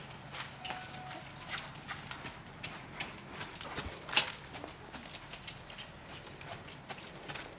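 A horse's hooves trotting on sandy arena footing: a run of soft, quick hoofbeats, with one sharper, louder knock about four seconds in.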